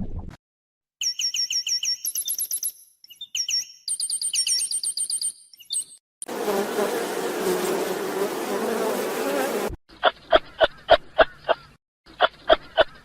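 A run of short animal-sound clips: high, thin repeated chirping calls first, then a few seconds of dense insect buzzing, then evenly spaced pulsed calls about three a second.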